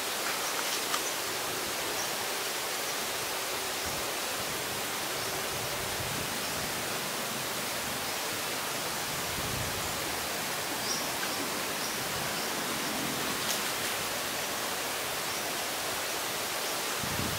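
Steady, even hiss of outdoor ambience, with a few faint ticks.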